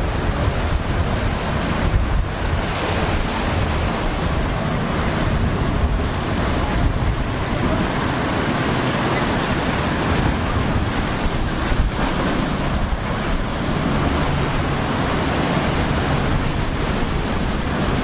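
Steady rush of breaking waves in the inlet, with wind buffeting the microphone.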